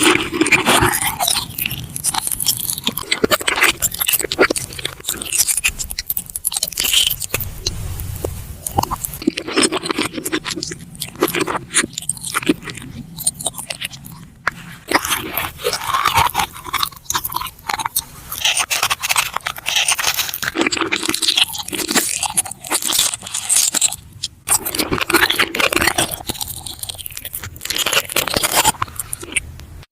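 Close-miked ASMR eating: a person biting into and crunching food, with chewing and mouth sounds in a dense, irregular run of crisp crackles and clicks.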